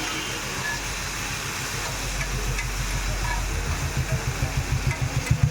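Street-stall background noise: a steady hiss with a low, rhythmic throb that grows louder over the last couple of seconds.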